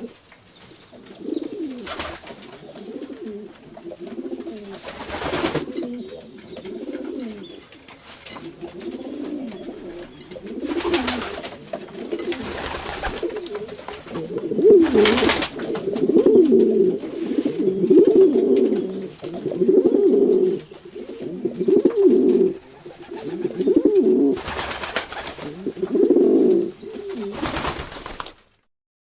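Pigeons cooing over and over in low, throaty, warbling calls, louder and more continuous in the second half. A few short rustling noises break in between the coos, and the sound cuts off suddenly near the end.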